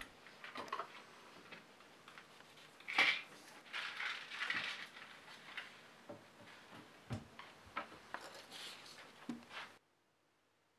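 A sheet of paper being handled on a tabletop: soft rustles and a few light clicks and knocks, the loudest rustle about three seconds in. The sound cuts off abruptly to dead silence near the end.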